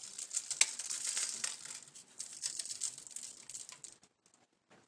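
Seasoning shaken from a shaker bottle, its grains pattering onto chicken pieces on aluminium foil with a crinkly hiss and scattered ticks; the shaking stops near the end.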